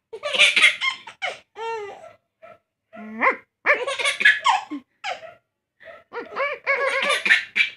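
A baby laughing in repeated bursts, with short gaps between them.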